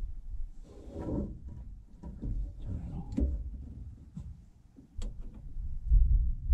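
Hands working on parts in a small truck's engine compartment: scattered small metallic clicks and clunks, with clothing rustling and low rumbling thumps, loudest near the end. The engine is not running.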